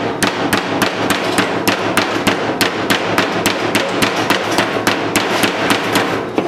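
Square-headed metal meat mallet pounding a raw snow goose breast on a cutting board to tenderize it: rapid, even blows, about four to five a second.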